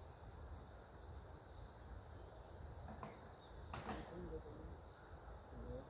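Faint steady high-pitched chirring of insects, with faint low voices in the background and a single sharp click just under four seconds in.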